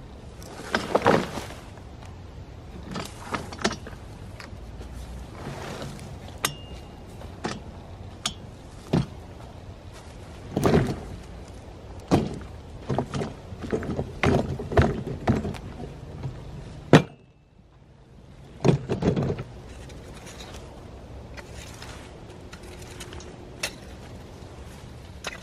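Gorilla Carts plastic dump cart being pushed and tipped to dump a load of soil, with repeated knocks and clatters from the bed and frame, then a long-handled tool scraping and spreading the dirt.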